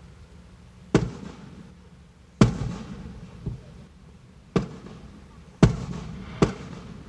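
Aerial firework shells bursting overhead: about six sharp booms over some seven seconds, each followed by a rumbling echo. The loudest come about two and a half seconds in and near the end.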